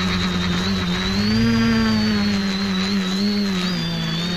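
Quadcopter's electric motors and propellers humming, heard close from a camera mounted on the craft, with a high motor whine above. About a second in, the pitch and loudness rise as the throttle goes up, then ease back down.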